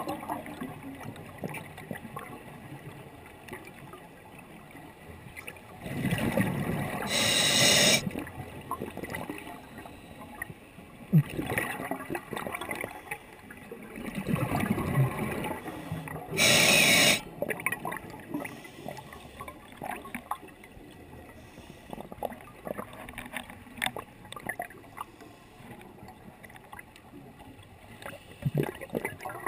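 Scuba diver breathing through a regulator underwater. There are two breaths, around seven and sixteen seconds in. Each is a rumble of exhaled bubbles with a sharp hiss of inhalation, and faint bubbling and crackling water sounds fill the gaps.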